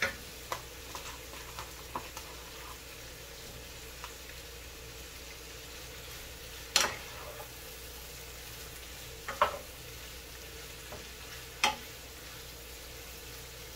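Sliced bell peppers and onions frying with a steady sizzle in a sauté pan as a wooden spoon stirs them, with a handful of sharp knocks of the spoon against the pan.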